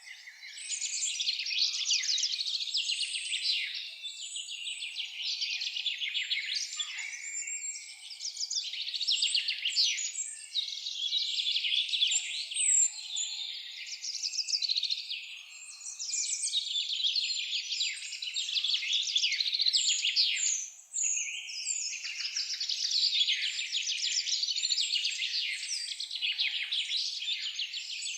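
Songbirds chirping and singing in rapid, high-pitched trills almost without pause, with a brief lull a little after two-thirds of the way through.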